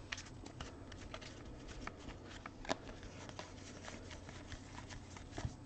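Faint rustle and light clicks of a stack of trading cards being handled and flipped through by hand, with a few sharper card ticks, the loudest about two and a half seconds in.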